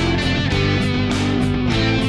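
Rock music with guitars and a steady drum beat.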